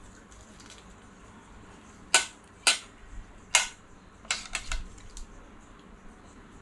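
Metal fork and spoon clinking against a stainless steel serving tray: about six sharp clinks between about two and five seconds in, over a quiet room.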